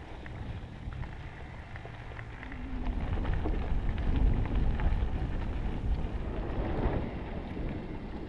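Mountain bike riding along a dry dirt singletrack: tyres rolling and crunching over the dirt with small rattles and clicks, under wind rumbling on the microphone. It gets louder about three seconds in.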